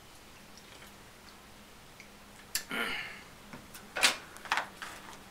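Aluminium soda can being drunk from and then set down on a wooden desk. A click and a short breathy sound come about halfway through, then a sharp knock a little later as the can meets the desktop, and a few lighter knocks after it.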